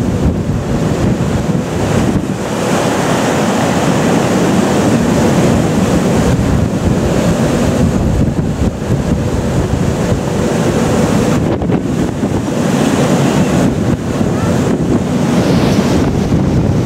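Heavy wind noise buffeting the microphone over the rush of breaking sea and wake along the side of a square-rigged sailing ship running before a strong wind. The sound is loud and continuous, easing for a moment a few times.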